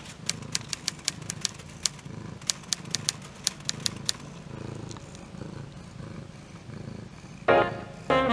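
A cat purring with a low, steady rumble, overlaid with a typewriter key-click sound effect: about eighteen sharp clicks in the first four seconds. Loud saxophone music starts near the end.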